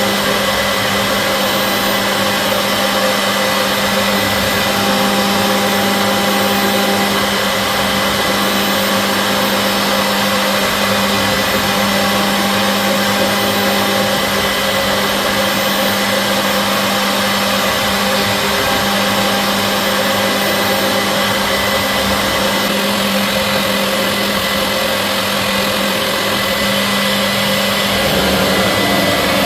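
CNC machine running: a steady motor hum with several constant tones over a noisy haze.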